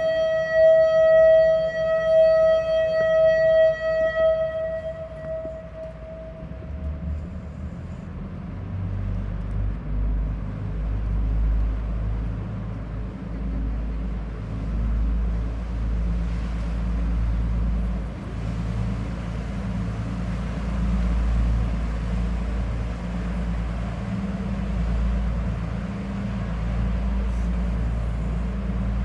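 A sightseeing boat's horn holding one steady note that fades away over the first few seconds, then the boat's engine running with a low, steady rumble that picks up about eight seconds in.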